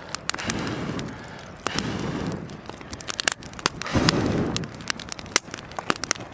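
Freshly stoked wood fire crackling, with many sharp pops and snaps, and three swells of low rushing noise about a second in, around two seconds and around four seconds in.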